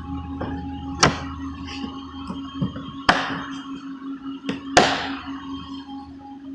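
Heavy metal tools clanking as they are handled in a plastic storage tote: three sharp knocks about a second, three seconds and nearly five seconds in, the last the loudest, with lighter knocks between, over a steady background hum.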